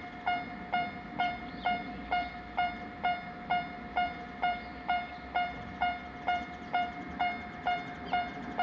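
Japanese railway level-crossing warning bell ringing, a pitched electronic ding repeating steadily about two and a half times a second, with a low rumble underneath.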